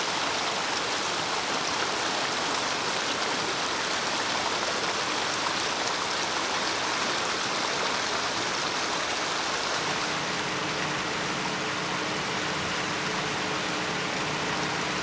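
Shallow mountain stream rushing steadily over rocks. From about ten seconds in, a faint, steady low machine hum joins the water.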